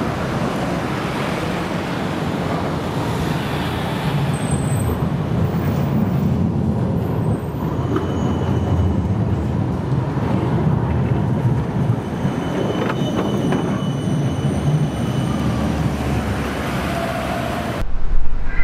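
Siemens Combino low-floor tram running along street rails into a stop and passing close by: a steady low rumble of the tram over the track amid street traffic. The sound cuts off abruptly near the end and gives way to a louder street sound.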